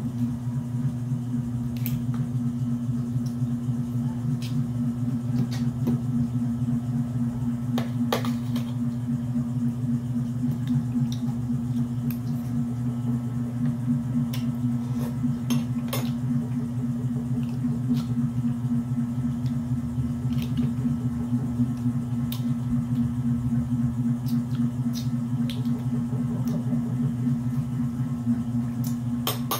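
Scattered small clicks and cracks of cooked mud crab shell being pulled apart and picked by hand while eating, over a steady low hum.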